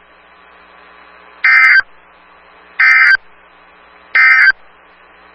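NOAA Weather Radio EAS/SAME end-of-message signal: three short, identical warbling data bursts about a second and a half apart, marking the end of the Required Weekly Test, over a faint steady radio hiss.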